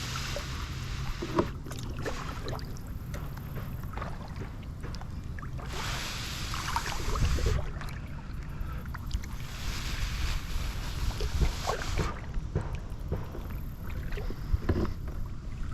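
Water washing and lapping against a small kayak's hull as it moves, with wind buffeting the microphone in low rumbles. The hiss swells and fades in waves a few seconds apart, with scattered light knocks.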